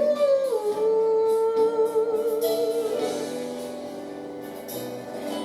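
Instrumental backing music: a long held note with a slight waver, fading gradually away.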